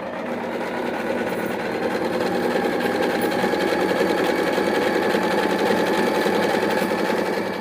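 Singer electric sewing machine running steadily at speed, stitching a decorative pattern stitch.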